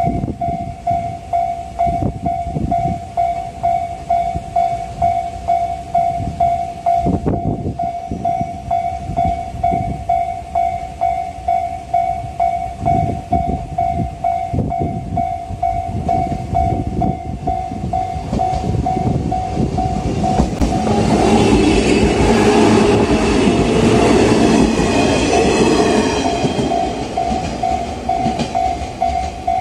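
Japanese railway level crossing alarm ringing rhythmically on one high tone. About 21 s in, a JR Ube Line electric train runs through the crossing; its running noise swells for several seconds and fades while the alarm keeps ringing.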